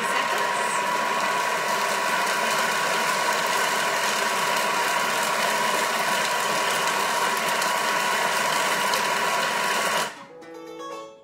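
Thermomix food processor's motor running at one steady speed, mixing ground chocolate with heavy cream in the bowl, then stopping about ten seconds in.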